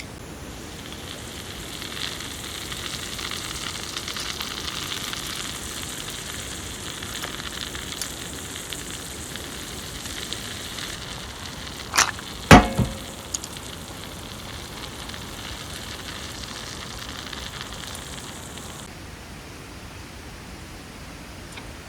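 Food sizzling and crackling in a hot pan, with a sharp loud clack of utensil or cookware about halfway through.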